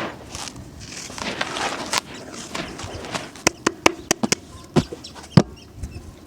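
Dry concrete chunks being crumbled and crushed: a gritty, crunchy crumbling, then a string of about eight sharp snaps in the second half as pieces break.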